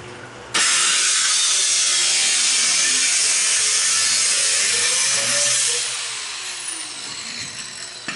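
A power cut-off tool starts abruptly about half a second in and runs with a steady, loud, high hiss as it cuts through the sheet-metal wheel well of an old Ford pickup. After about five seconds it is let off and winds down with a falling whine.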